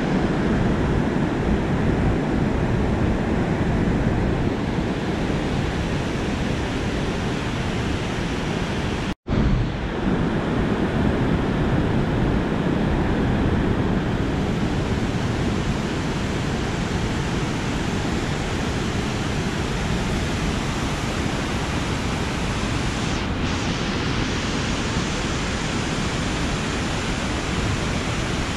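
Whitewater of the Merced River rushing down a boulder cascade: a steady, loud rush of water that cuts out for an instant about nine seconds in.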